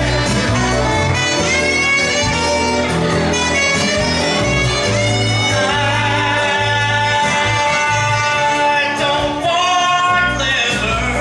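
A man singing into a microphone over a recorded backing track, at a karaoke contest.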